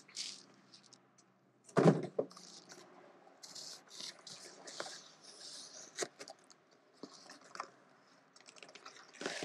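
Cardboard packaging being handled and pulled apart, with rustling and scraping of the box flaps and scattered light knocks. One loud knock about two seconds in.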